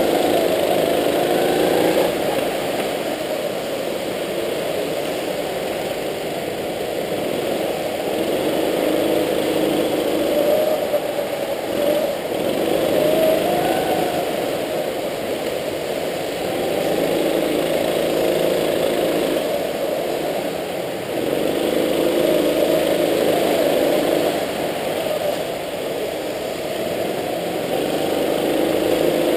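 Go-kart engine running flat out on a lap, its revs rising and falling again and again as the kart accelerates along the straights and slows for the corners.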